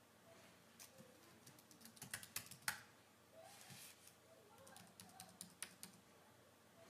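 Faint typing on a computer keyboard: scattered key clicks, a few slightly louder ones about two to three seconds in.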